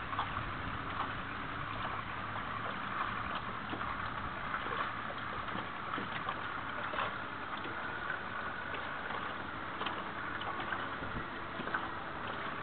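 Steady open-air river noise of wind and moving water, with a faint low engine hum that is clearest near the start and the end.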